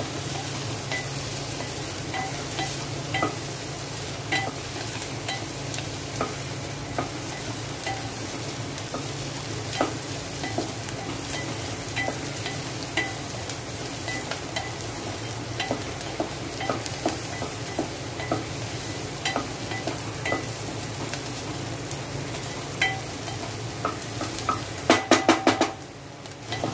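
Chopped onion and green chillies sizzling in oil in a pot, a wooden spatula stirring and scraping with frequent light taps against the pot; near the end a quick run of sharp knocks.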